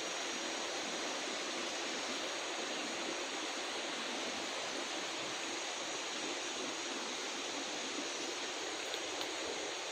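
Steady rushing noise like running water, even throughout with no breaks or distinct events.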